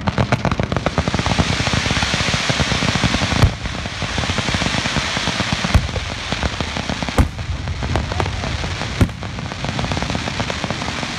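Fireworks finale: a dense, continuous crackling from many shells going off at once, with four louder single bangs standing out through it.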